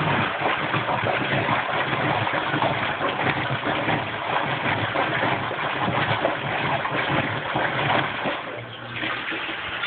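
Kenmore Oasis top-load washing machine agitating in step C6 of its diagnostic self-test: the drive motor runs steadily under churning, sloshing water, with a brief lull near the end.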